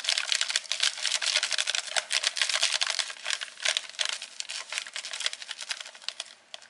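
Plastic bag crinkling and crackling as white powder is shaken out of it into a plastic blender cup: a dense run of rapid crackles that thins out near the end.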